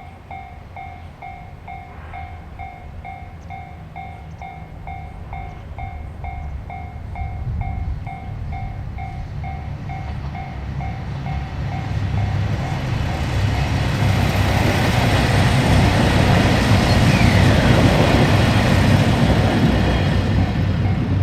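Railway level-crossing warning bell ringing in a steady, repeating clang while a train approaches and passes. The rumble of the train on the rails grows from about six seconds in and is loudest in the second half, where it drowns out much of the bell.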